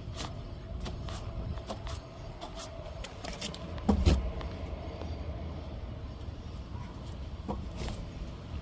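Cab noise of a 2008 Toyota Tundra on the move: steady low road rumble with scattered clicks and a heavier thump about four seconds in, and a faint steady whine through the first half.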